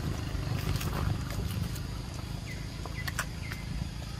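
Long-tailed macaques eating lotus seed pods: scattered small clicks and crackles of handling and chewing over a steady low rumble. A few short high squeaks come between about two and a half and three and a half seconds in.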